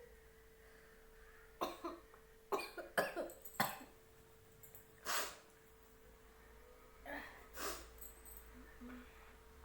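A person coughing in short bursts, a quick run of coughs about two to four seconds in, then a few single ones. The coughs are set off by a chilli pushed into the nose to force a sneeze.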